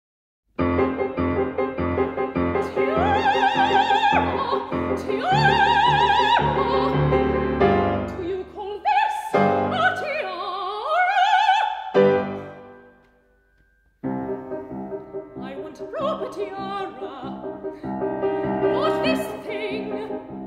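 Operatic soprano singing an aria with grand piano accompaniment, holding long notes with a wide vibrato. The music breaks off about twelve seconds in for a pause of a second or so, then piano and voice start again.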